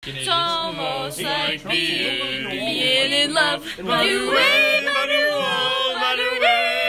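Several voices singing together without instruments, the pitches sliding and overlapping.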